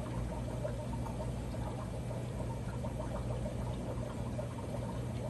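Aquarium water circulating: a steady trickle and gentle bubbling of water, over a low steady hum.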